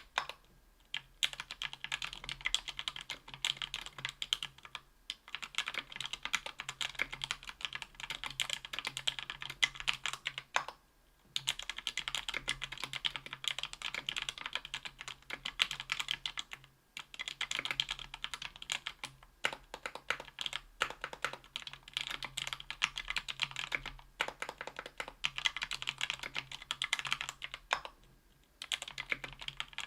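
Fast typing on a Tofu 60% aluminium mechanical keyboard with lubed Thic Thock Marshmallow 68 g linear switches on an aluminium plate, with GMK keycaps. The switches are lubed with Krytox 205g0. The keystrokes come in dense runs of several seconds, separated by short pauses.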